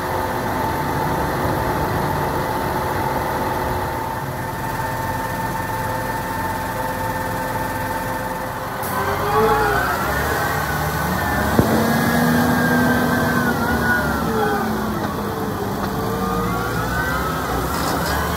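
New Holland T8.390 tractor's six-cylinder diesel engine idling steadily. After a cut about nine seconds in, it runs as the tractor drives off, with several tones rising and falling in pitch.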